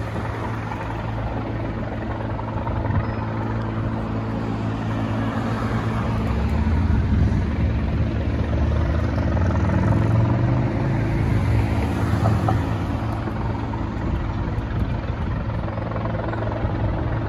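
Military helicopter hovering overhead: a steady rotor and engine drone that grows louder about six seconds in and eases off slightly after about twelve seconds.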